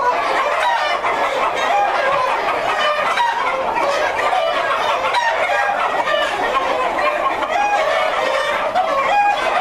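A large flock of Brown Leghorn chickens, hens and roosters together, clucking and calling over one another. Many short calls overlap at a steady level.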